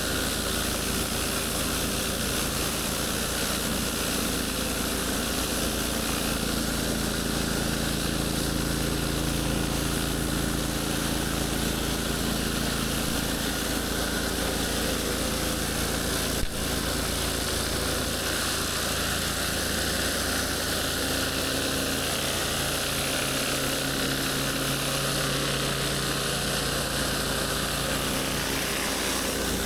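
Pressure washer running steadily: the engine's drone under the hiss of high-pressure water spray. A single sharp click about halfway through.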